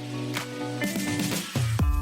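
Background music: a soft plucked melody with a regular beat, then a louder electronic dance beat with heavy bass comes in about one and a half seconds in.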